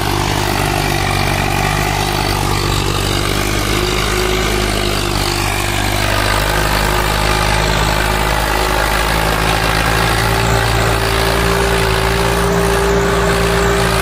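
Swaraj 744 XT tractor's three-cylinder diesel engine running steadily under heavy load while pulling a trolley fully loaded with earth; the engine note shifts slightly about halfway through.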